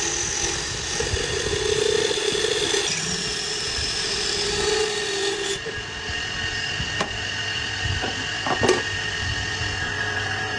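A motor running steadily, with a few sharp knocks in the second half.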